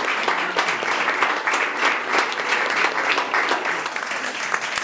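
Audience applauding: many hands clapping steadily and irregularly.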